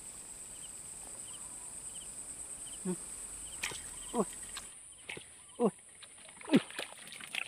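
Insects droning in a high, steady, pulsing buzz, with faint short chirps repeating about twice a second; the buzz cuts off about two-thirds of the way in. In the second half, about four short animal calls slide down in pitch, and these are the loudest sounds.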